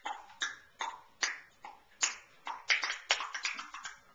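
Tongue clicks imitating a horse's clip-clop hoofbeats: a dozen or so sharp clicks at an uneven trot, quickening in the second half.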